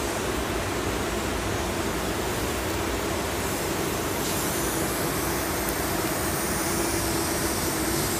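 Steady mechanical background noise with a low hum, like air-handling or ventilation noise in a spray shop; a faint high whine joins about halfway through. No spraying is heard yet.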